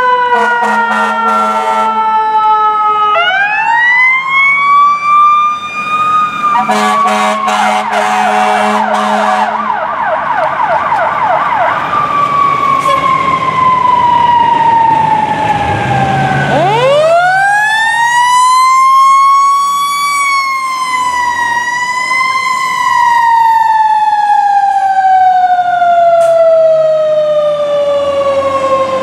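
Fire apparatus sirens on an emergency response: a mechanical Q-type siren winds up sharply a few seconds in and again about halfway, each time then coasting slowly down in pitch. Blasts of air horn come near the start and again around the first third.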